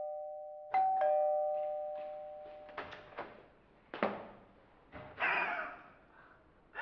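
Electric two-tone doorbell chiming a falling ding-dong that rings out and fades, the second ring of the bell. A few short clicks and knocks follow as the door handle is worked and the door opened.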